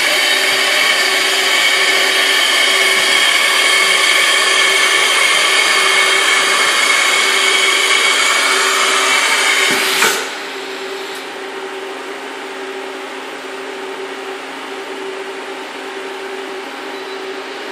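Mazak VTC-41L CNC vertical machining center running with a loud, steady high whine that cuts off abruptly with a click about ten seconds in, leaving a quieter steady machine hum.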